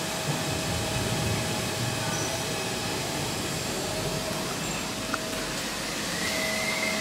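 Steady rushing machine-like background noise with a constant mid-pitched hum, and one small click about five seconds in.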